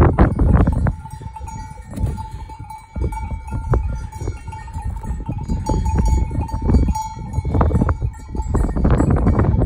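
Bells on a grazing flock of sheep clanking and ringing irregularly, in clusters of strikes. A strong, uneven rumble of wind buffets the microphone.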